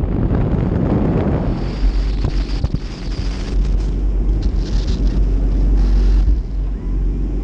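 Wind buffeting a boat-mounted microphone as a jet boat runs at speed over open water, over the rushing noise of the boat and its wake. The low rumble strengthens about two seconds in.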